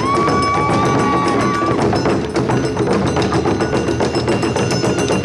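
Awa Odori festival music: a bamboo flute holds one long high note for nearly two seconds over fast, steady percussion strokes from the accompanying drums and gong.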